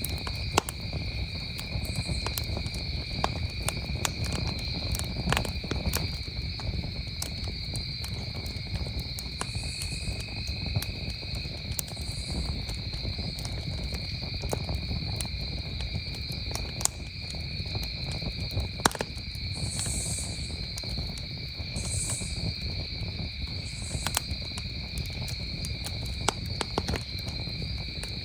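Campfire crackling and popping with many sharp snaps over a low rumble of burning wood, against a steady, unbroken trill of crickets. A few short higher-pitched calls come through now and then.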